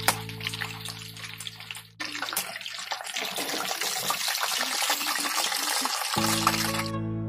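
Chicken pakoras deep-frying in hot oil: a dense, steady crackling sizzle.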